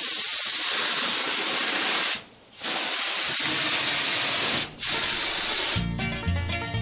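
Gravity-feed air spray gun hissing as it sprays primer, in three long passes with two short breaks where the trigger is let off. Music begins near the end.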